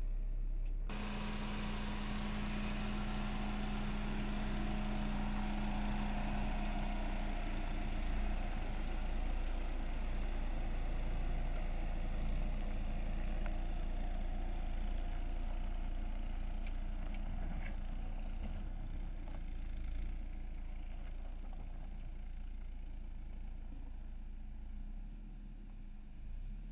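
Jeep Cherokee Trailhawk's engine running at a low, steady speed as the SUV creeps along a dirt trail, with an even rush of tyre and running noise. The sound cuts in abruptly just under a second in.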